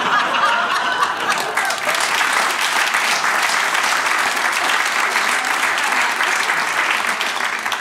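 Audience applauding, a dense steady clapping that dies away at the very end.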